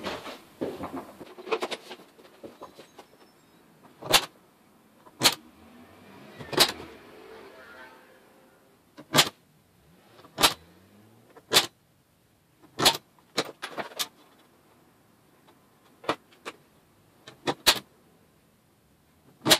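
Centre punch marking hole centres in a sheet-metal panel: about a dozen sharp metallic strikes, roughly a second apart, with a few quick pairs near the end. Handling rustle comes before the first strike.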